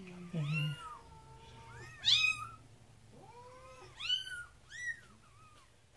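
Young kitten mewing during a bath, about five high, arching cries a second or two apart, the loudest about two seconds in: distress calls at being washed and wet.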